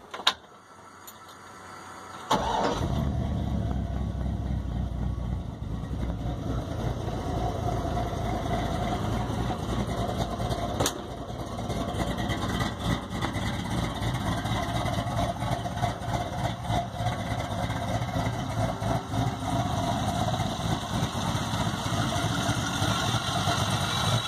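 Chevrolet 5.3-litre LS V8 in a 1950 Chevrolet pickup starting: a click, then the engine catches suddenly about two seconds in and runs at a steady idle. The idle settles slightly a few seconds after it fires.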